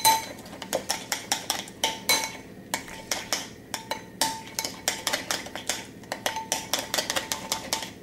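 A spoon stirring thick lemon icing in a glass bowl, clinking against the glass in an uneven run of sharp, briefly ringing taps, a few each second.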